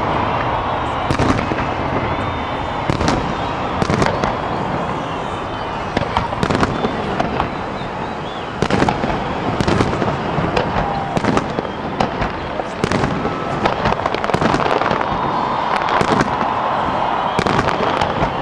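Aerial fireworks display: shells bursting one after another at irregular intervals, many sharp bangs over a continuous background rumble.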